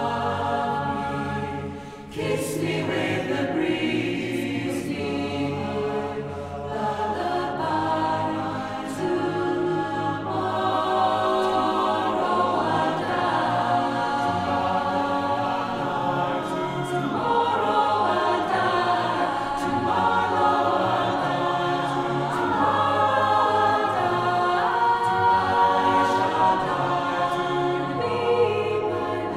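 A cappella vocal ensemble singing in harmony, with no instruments. It drops briefly about two seconds in, then swells back and carries on.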